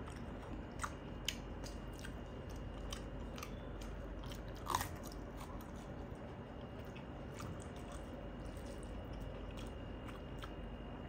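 A man chewing a mouthful of rice with soft mouth sounds, eaten by hand. A few faint clicks come in the first couple of seconds, and one louder click about five seconds in.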